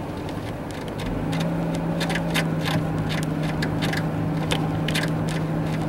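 Car engine and road noise inside the cabin while driving through snow, the engine hum settling onto a steady pitch about a second in and holding there. Irregular sharp ticks sound over it from about two seconds in.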